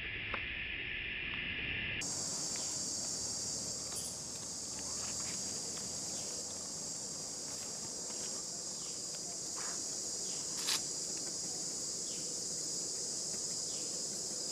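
Insect chorus: a steady, high-pitched drone that jumps abruptly to a higher pitch about two seconds in. A few faint short clicks, with a sharper crack about three-quarters of the way through.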